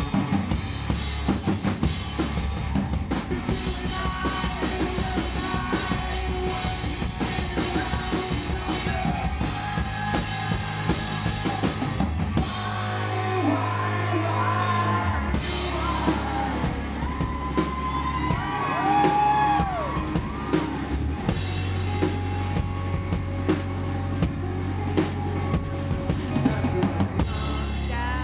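Live rock band playing: drum kit keeping a steady beat with bass drum and cymbals, electric guitar and bass, with a male lead vocal singing over it.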